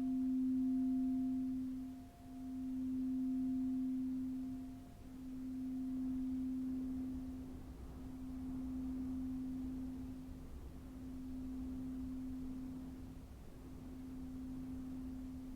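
A crystal singing bowl ringing on one low, pure note, its tone swelling and dipping in a slow pulse about every three seconds. A fainter higher overtone dies away partway through, and the ring slowly fades.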